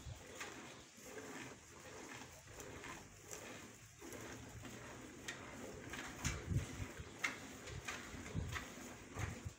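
Cow being milked by hand: short streams of milk squirting into a container, about two squirts a second. A few louder low thumps come in the second half.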